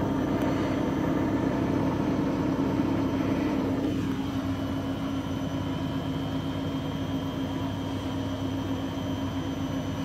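Grundig front-loading washing machine in its spin cycle with a load of towels: the drum whirs with a steady motor whine, easing slightly in loudness over the stretch, and a brief falling sweep about four seconds in.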